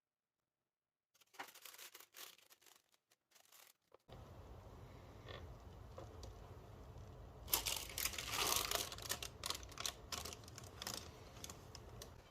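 Packaging being handled by hand: light rustles and clicks, then a louder stretch of crinkling and tearing about halfway through, over a steady low hum that starts about four seconds in.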